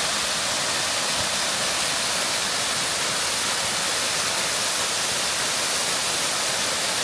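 Waterfall cascading off a shale rock wall into a creek bed: a steady, even rush of falling water.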